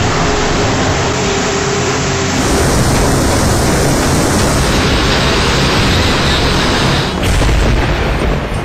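News-segment sound design: a loud, dense rushing noise with music underneath, changing abruptly about two seconds in, then a deep boom hit about seven seconds in.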